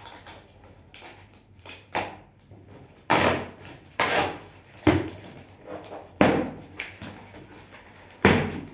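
A cardboard parcel being unpacked by hand, with the box and its extruded polystyrene packing pulled and shifted in a series of irregular rustles and knocks, about six loud ones.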